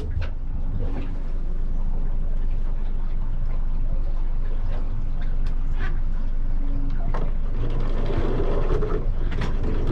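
Boat engine running steadily, with a few scattered clicks and knocks.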